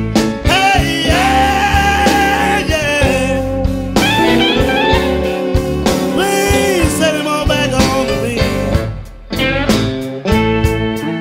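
Electric blues band playing an instrumental stretch, a lead guitar soloing with bent notes over the band.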